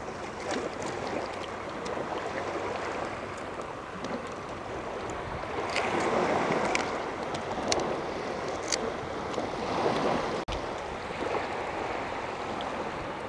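Sea waves washing steadily onto a sandy shore, swelling and easing, with a few short sharp clicks around the middle from prawn shells being peeled by hand.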